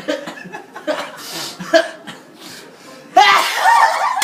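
Soft laughter, then about three seconds in a sudden loud voiced sneeze that carries on for about a second.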